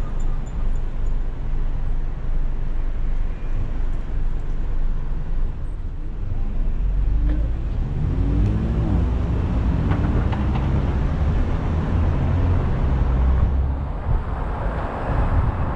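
Car driving in city traffic: a steady low engine and road rumble. About seven seconds in the engine's pitch rises as the car pulls away and accelerates, and near the end more wind and tyre hiss comes in.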